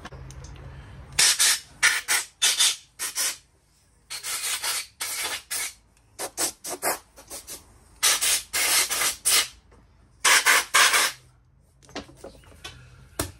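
Rapid hissing, rubbing strokes in runs with short pauses: quick short strokes early, then several longer sweeps. The strokes come from hand work on the parts of a Honda C70 engine on the bench.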